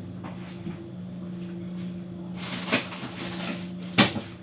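A refrigerator door being handled: a brief rustle with a knock in the second half, then a sharp click near the end as the door shuts. A steady low hum runs underneath.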